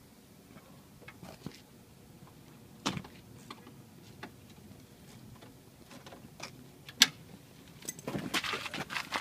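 Scattered faint clicks and knocks from handling a Manco Dingo go-kart, with a sharp click about seven seconds in. Near the end comes a rough rasping burst as a hand works at the kart's small engine.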